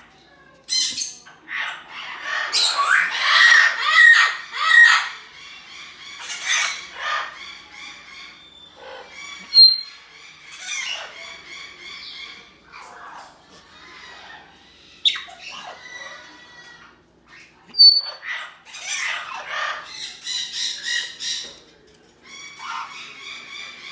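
African grey parrot calling in short irregular bursts of squawks, whistles and chatter, with a few sharp clicks.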